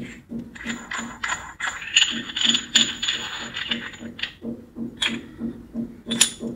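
Aluminium parts of a coffee distribution tool and tamper being pulled apart and set down on a wooden table. A metal scrape with a thin high ring runs for a few seconds near the start, with sharp clinks as pieces are put down; the loudest clink comes near the end.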